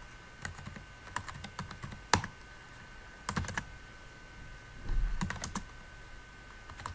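Computer keyboard typing: short runs of keystrokes separated by pauses, with one key struck harder about two seconds in.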